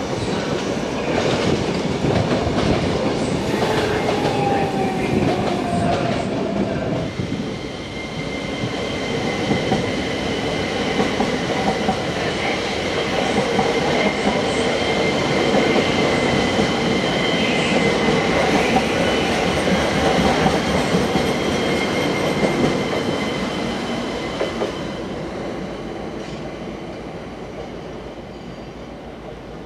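ÖBB Cityjet electric multiple unit passing close along the platform and running away, a steady high-pitched whine over the noise of wheels on rails, fading over the last few seconds. A few seconds in, falling tones come from a train on a farther track.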